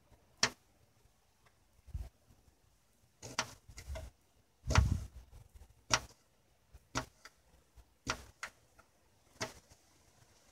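Kitchen knife chopping green chili peppers on a plastic cutting board: irregular sharp knocks of the blade striking the board, about one a second, with a heavier thump about five seconds in.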